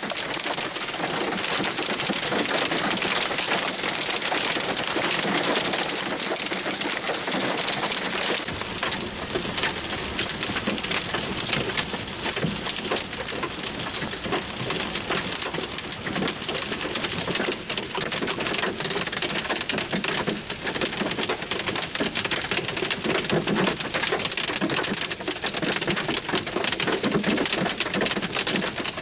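Hailstones about an inch across pelting the roof and windshield of a vehicle, heard from inside the cabin: a dense, steady clatter of countless impacts.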